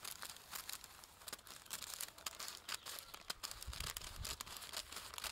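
Scissors snipping through a sheet of transfer paper, many short sharp cuts at an irregular pace, with the stiff paper rustling as it is handled.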